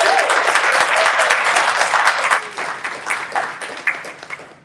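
Audience applause: many people clapping, loud at first and fading away over the last couple of seconds.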